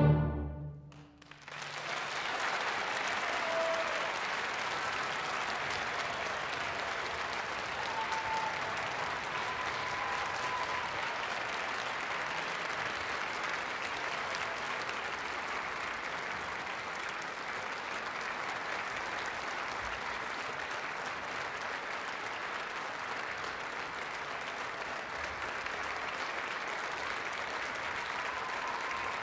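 An orchestra and solo cello end their final chord just as this begins. After about a second's hush, a theatre audience breaks into steady, sustained applause.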